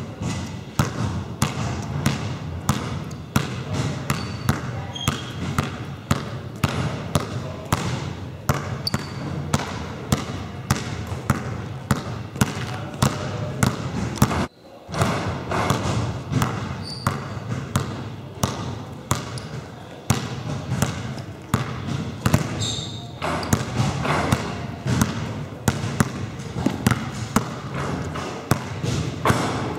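Two basketballs dribbled at once on a wooden sports-hall floor, a quick, steady run of bounces with a short break about halfway.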